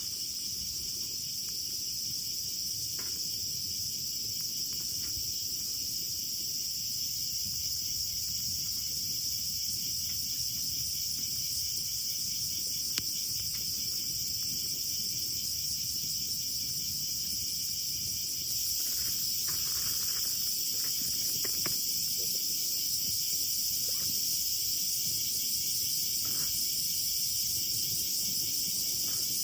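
Crickets chirping in a steady, high-pitched chorus, with a few faint clicks scattered through it.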